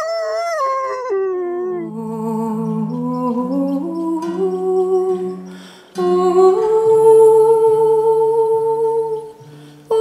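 A wolf howls at the start, one long call whose pitch falls away about a second in. Slow background music of long held notes takes over and runs on.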